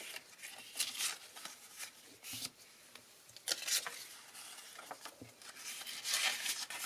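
Sheets of paper and card stock handled by hand on a paper trimmer: light, scattered rustles and brushing strokes, the loudest near the end.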